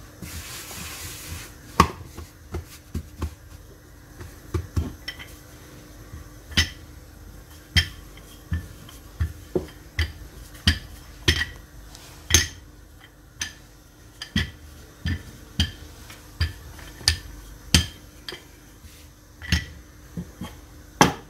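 Wooden rolling pin knocking and rolling on a granite countertop as pastry dough is rolled out: irregular sharp clacks, roughly one or two a second, after a brief hiss at the very start.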